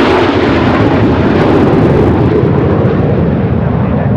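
Blue Angels F/A-18 jets in a six-jet formation roaring as they climb away after takeoff. The roar is loud and steady, with its hiss thinning from about halfway as the jets pull away.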